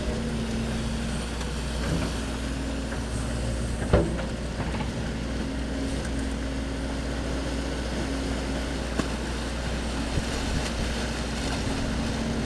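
Link-Belt excavator's diesel engine running steadily as it digs sand, with a single knock about four seconds in.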